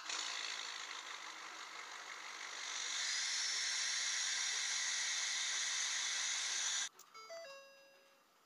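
Ford 6.7 L Power Stroke V8 turbo diesel running, heard at the tailpipe as a steady hissing rush that grows louder about three seconds in and then cuts off. After it, a sequence of steady electronic chime tones from the truck's dash.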